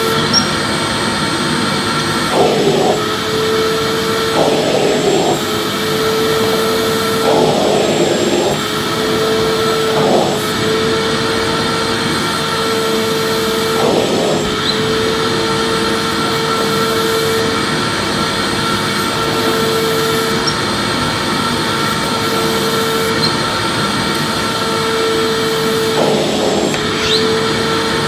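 Electric vacuum cleaner running steadily, its motor noise carrying a constant whine, with brief changes in the sound every few seconds.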